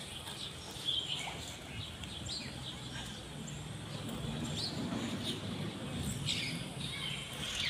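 Outdoor ambience of scattered bird chirps over a low, steady background rumble.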